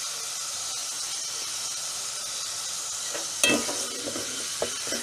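Hot oil sizzling steadily in a pot of browned onions and whole spices as cumin seeds go in. About three and a half seconds in, a sharp clink of the metal slotted spoon against the pot, then a few lighter stirring knocks.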